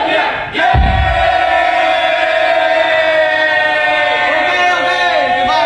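Many voices chanting together in one long held note, wavering near the end, with a low thump about a second in.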